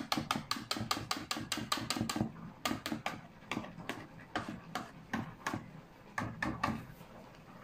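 Cake batter being beaten by hand in a mixing bowl: a utensil knocks quickly against the bowl, about six strokes a second at first, then slower and uneven, stopping near the end.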